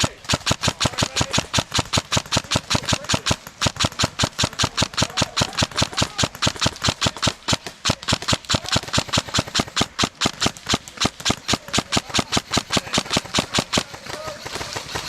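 Airsoft gun firing a long, steady stream of shots, about five or six sharp cracks a second, stopping near the end.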